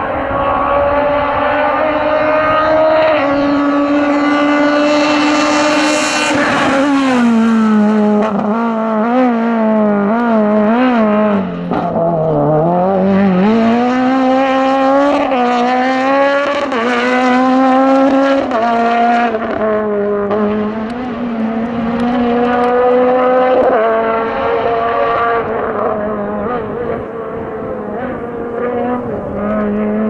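F2000-class rally car's naturally aspirated engine driven hard at high revs, pulling up through the gears with a pitch drop at each upshift. Around the middle it makes a run of quick lifts and throttle blips as it slows for corners, then climbs through the gears again.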